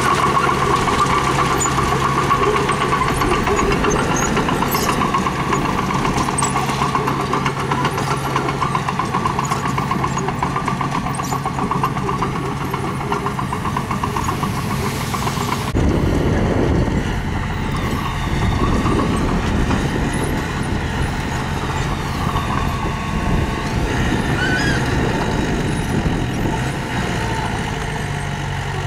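Heavy-equipment diesel engine running steadily, with an abrupt change in the sound a little past halfway through.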